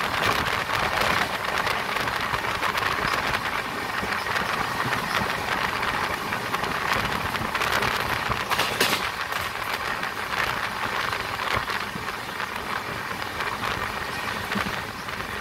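Running noise of a passenger express train heard through an open coach door: a steady rush of wheels on rail and wind, with a brief sharper clatter a little past the middle.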